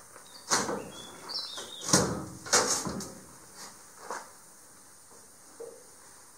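Metal knocks and scraping of a small aluminum boat hull being shoved along its trailer by its outboard's tiller handle. Several knocks come close together in the first three seconds, and one more comes about four seconds in.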